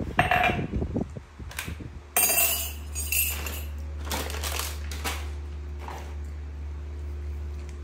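Macaque biting and chewing boiled corn on the cob: a string of short crunching and smacking noises, several of them sharp, between about two and six seconds in. A steady low hum comes in suddenly about two seconds in.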